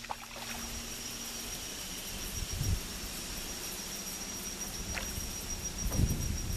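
Steady high-pitched insect call, like a cricket, over quiet outdoor ambience, with a soft low thump about two and a half seconds in and another near the end.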